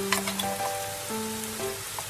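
Background music of simple held notes, over the steady hiss of ground chicken sizzling in a frying pan.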